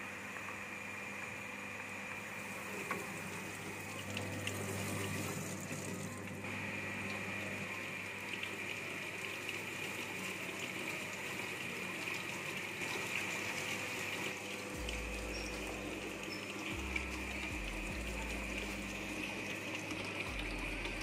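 SOLTEQ FM110 hydraulic bench's pump running steadily, with water rushing through the pipework and the jet spraying in the impact-of-jet apparatus. It grows somewhat louder about four seconds in.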